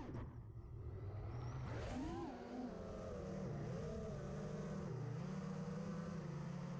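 FPV racing quadcopter's electric motors and propellers whining. The pitch drops sharply as the throttle is cut at the start, climbs again about two seconds in, then wavers up and down with the throttle.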